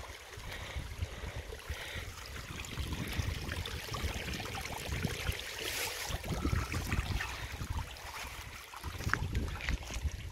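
Wind buffeting the microphone in uneven gusts, over a faint steady trickle of puddle water running off the asphalt road through a channel dug in the verge into the ditch.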